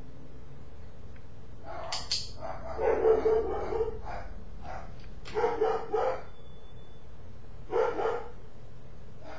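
A dog barking in short bouts, four times with pauses between.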